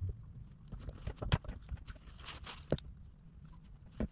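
Irregular light taps, clicks and short scrapes of hand work on a plastic tank, with two sharper clicks, about a second and three seconds in, over a low steady hum.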